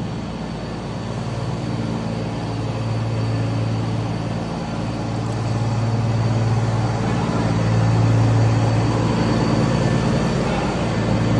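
Scania truck's diesel engine idling steadily through its newly fitted exhaust diffuser, getting a little louder about seven seconds in.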